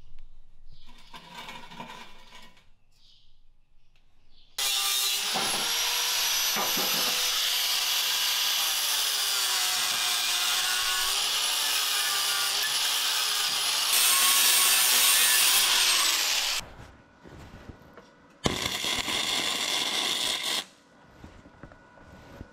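Angle grinder running against rusty square steel tubing, its pitch wavering as it is pressed into the work. It starts about four and a half seconds in and runs for about twelve seconds, louder near the end of that run, then grinds again briefly for about two seconds.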